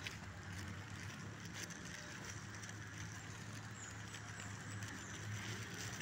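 Footsteps on a concrete paving-block path, heard as a few faint clicks over a steady low hum.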